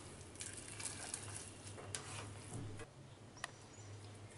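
Faint scraping and soft squishing of a spatula stirring thick semolina upma in a nonstick pan, with a few light clicks of the spatula against the pan, over a low steady hum.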